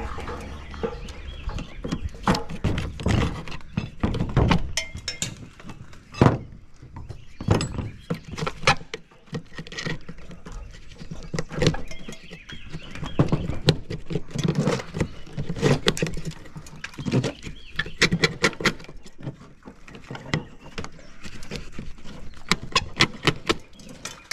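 Irregular thunks, knocks and metallic clanks of an old stapled-on metal gutter being worked loose and pulled off a mobile home's roof edge.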